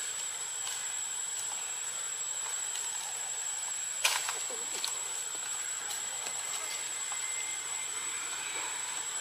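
Steady outdoor background hiss with a thin, high, steady tone above it, and one sharp click about four seconds in.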